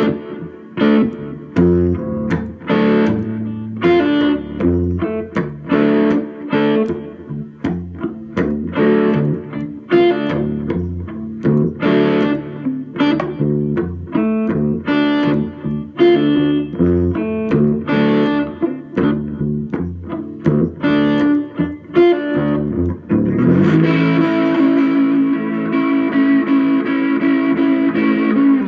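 Electric guitar played with a bottleneck slide: a phrase of separate picked notes, then about 23 seconds in a sustained, ringing chord held to the end.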